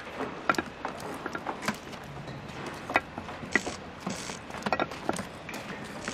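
Bricklaying work: trowels clinking against bricks and a mortar bucket and scraping up mortar, a run of irregular sharp clicks with a few short scrapes.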